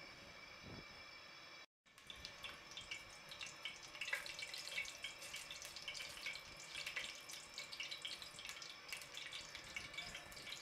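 Whole spices (cinnamon sticks, cloves, black peppercorns and black cardamom) sizzling and crackling in hot oil in a pot, with dense irregular pops, as a spatula stirs them. The sizzle starts after a brief cut about two seconds in; before it there is only a faint steady hum.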